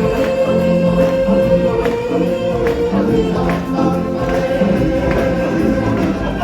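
Music: a choir singing over a band with percussion strikes, holding a long note through the first half.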